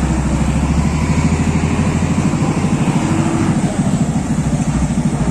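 Diesel engine of a heavy cargo truck running at low speed as it pulls past close by, a low, even throb.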